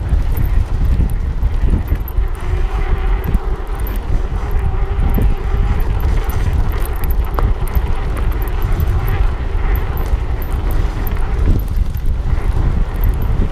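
Ride on an electric mountain bike over a dirt road: wind buffeting the camera microphone over the tyres' rumble on the gravel. A faint steady whine runs through from about two seconds in until near the end.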